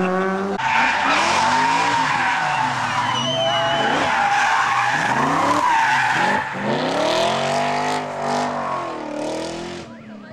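Rally car engine revving hard through a hairpin, with tyres squealing as the car slides. The revs rise and fall several times with gear changes, then fade as it pulls away near the end.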